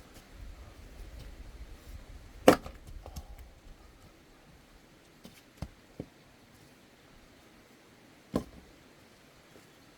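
Axe striking firewood: a sharp crack about two and a half seconds in and another strong strike near the end, with two lighter wooden knocks between them.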